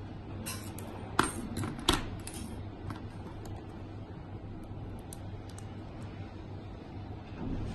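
Small hard clicks and clatter from handling a mobile phone and its SIM card: a quick run of clicks, two sharper ones about a second in and just before two seconds, then a few light ticks.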